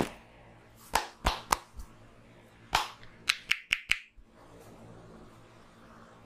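Sharp hand slaps and claps of a barber's head massage: about nine smacks in the first four seconds, spaced out at first and ending in a quick run of four.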